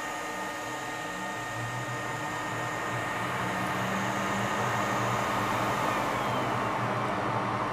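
Steady blowing of a small fan on an electronics repair bench, with a low hum that grows a little louder about three seconds in.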